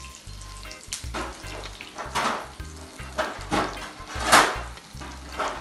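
Egg-battered chicken breasts frying in hot olive oil in a sauté pan, sizzling, with several short clattering noises, the loudest about four seconds in. Background music with a steady bass beat runs underneath.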